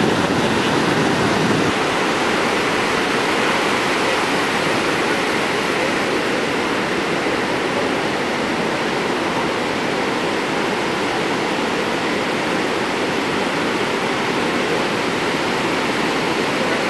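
Breaking ocean surf: a steady, loud wash of waves crashing, from heavy hurricane-driven swell.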